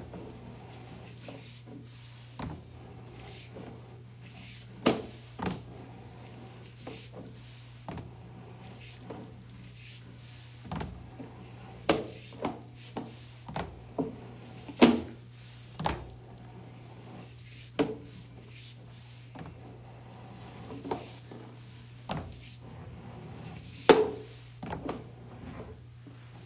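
Sewer inspection camera's push cable being pulled back through a drain line. Irregular knocks and clunks come at uneven intervals, the loudest about halfway through and near the end, over a steady low hum.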